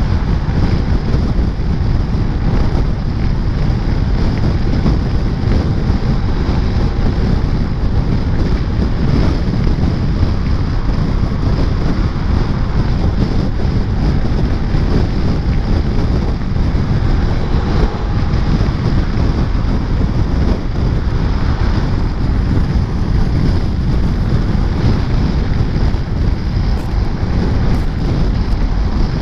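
Steady, loud wind noise buffeting the microphone of a moving scooter, with the scooter's engine and road noise lost underneath it.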